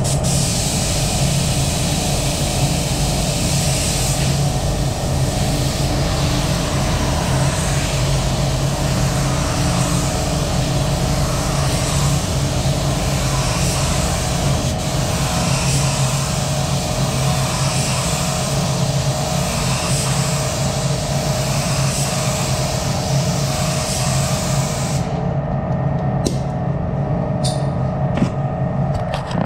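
Gravity-feed spray gun hissing steadily with compressed air as it lays a thin coat of epoxy primer. The hiss stops about four seconds before the end, followed by a few light clicks. A steady drone runs underneath.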